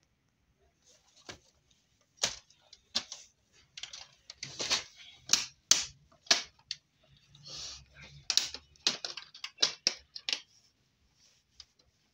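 Plastic side cover of an HP LaserJet Pro M404dn printer being pressed and worked into place by hand: a run of irregular sharp plastic clicks and snaps as its clips catch, thickest in the middle.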